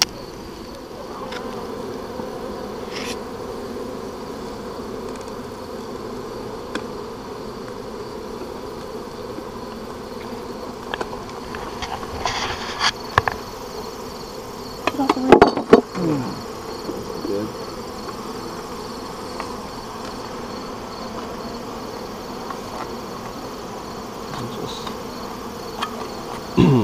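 Honey bees buzzing steadily around an opened hive. A few loud knocks come about halfway through.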